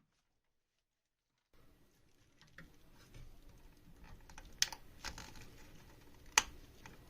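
A run of light clicks and taps starting about a second and a half in, with two sharper clicks among them.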